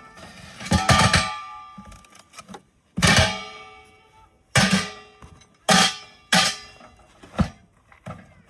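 Background music: guitar strummed in separate chords, each struck sharply and left to ring out.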